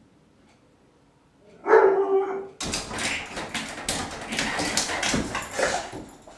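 A dog gives one short whine. Then a sliding glass patio door rattles and scrapes in its track for several seconds as the dog paws and noses it open.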